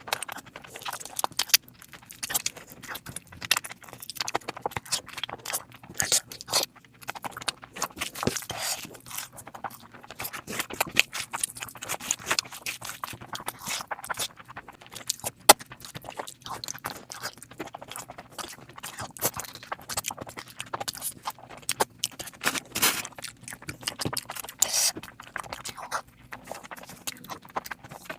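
Close-miked eating: steady chewing with wet mouth clicks and smacks, as in an ASMR mukbang.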